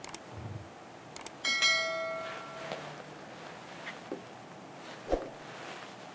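Subscribe-button animation sound effect: a couple of mouse clicks, then a notification bell ding about a second and a half in that rings out for about a second. Later come two short knocks.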